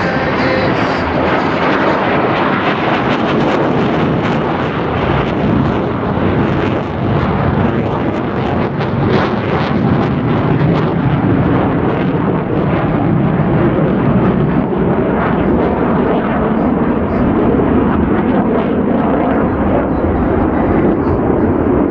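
Loud jet noise from the Blue Angels' F/A-18 Super Hornet formation, likely flying the Delta Breakout. It is harsh and crackling through the first half and becomes a lower, steady rumble toward the end.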